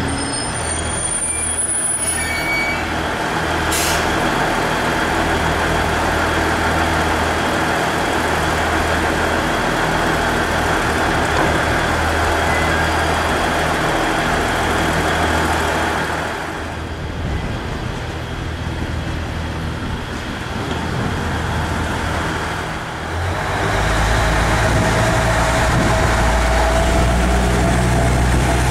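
KiHa 110-series diesel railcar's engine idling with a steady low drone, and a single sharp knock about four seconds in. Near the end the engine throttles up to a louder, deeper note as the railcar starts to pull away.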